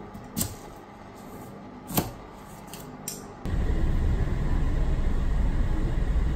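A few sharp clicks and knocks as kitchen items are handled on a counter, then, from about three and a half seconds in, a loud steady low rumble inside a vehicle moving through heavy rain.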